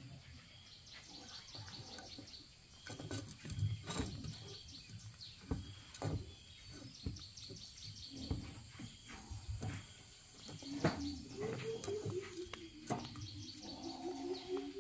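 Baby monkey sucking at a plastic baby bottle: small, irregular sucking clicks and handling noises, with faint chirping in the background. Music with held notes comes in about two-thirds of the way through.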